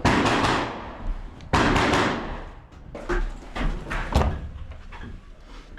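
Two loud, sudden bangs about a second and a half apart, each with a short hissing tail, followed by several lighter knocks and clatters.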